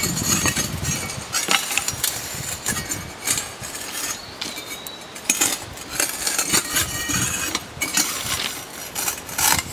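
Irregular metallic clinks and knocks of steel tools and parts handled at a thermite rail weld.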